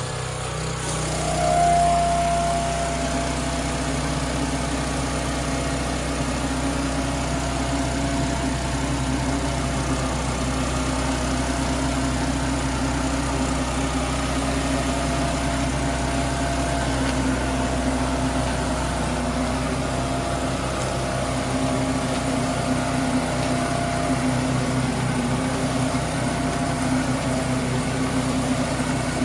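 Generac pressure washer's engine running steadily under load while high-pressure water sprays from a Powerhorse rotary surface cleaner onto concrete. A thin whistle joins in about a second and a half in.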